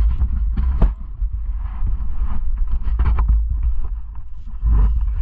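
Motocross bikes idling under a heavy, low rumble of wind buffeting the helmet-mounted camera's microphone, with a few sharp clicks.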